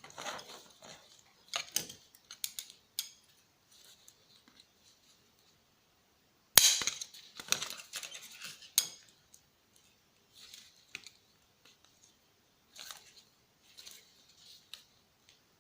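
Disassembly handling of a CRT TV/DVD combo: scattered clicks, light clinks and rattles of tools and plastic and metal parts, with short quiet gaps. A sharp knock about six and a half seconds in is the loudest sound.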